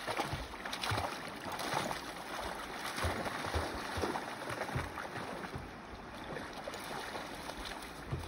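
Water splashing and rippling around a dog swimming in a river, with irregular low thuds.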